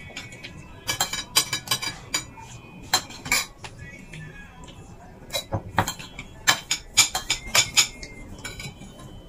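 Metal spoons and forks clinking against ceramic plates and bowls as people eat. The clinks come in runs of quick, sharp taps, some with a short ring, and are busiest from about halfway to near the end.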